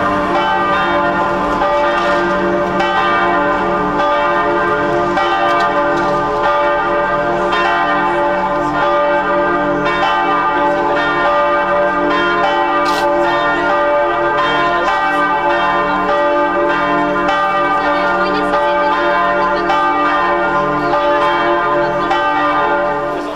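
Church bells pealing, with many strokes ringing over one another in a loud, continuous wash of overlapping tones. The sound cuts off suddenly at the end.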